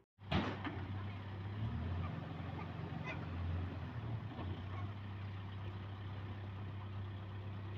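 An engine running steadily with a low hum; it comes in suddenly just after the start.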